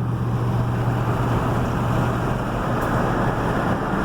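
Vehicle driving along a road: steady engine hum with road and tyre noise, as heard from inside the moving vehicle. The low hum shifts higher near the end.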